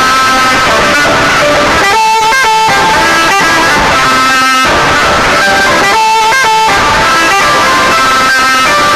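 Loud background music, a melody of held notes that change pitch every so often over a steady accompaniment.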